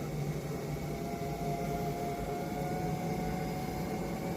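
Sole F63 treadmill running with no squeak, a steady low hum with a faint whine, its drive motor belt and motor pulley freshly cleaned.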